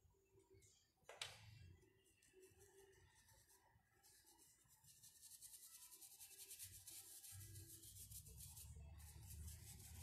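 Faint scratchy scrubbing of a paintbrush working paint into a rough, cracked wooden board, in quick back-and-forth strokes that grow steadier and louder in the second half. A single sharp tap comes about a second in.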